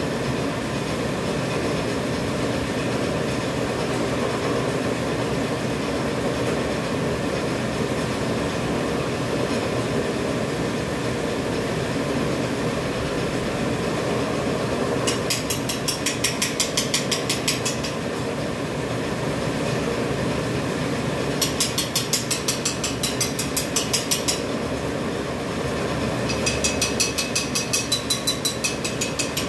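Automatic dental mask making machine running: a steady mechanical hum with three spells of rapid, regular clicking, about five a second, each lasting about three seconds.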